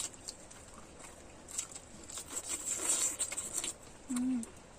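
Close-up eating sounds of a person chewing a mouthful of pork intestine: scattered wet clicks, then a denser spell of chewing from about a second and a half in, and a short hummed "mm" near the end.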